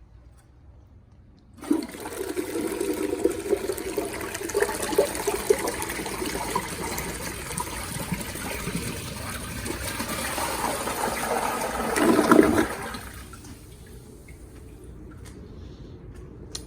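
A 1989 URC Atlas toilet flushing with a grocery bag in the bowl: the water rush starts suddenly about a second and a half in, swells to its loudest near twelve seconds, then falls to a quieter steady running of water.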